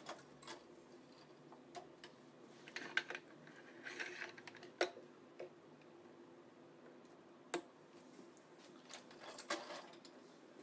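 Hands working a badminton stringing machine and its string while the crosses are tensioned: scattered sharp clicks and taps with short rustles of string, over a faint steady hum.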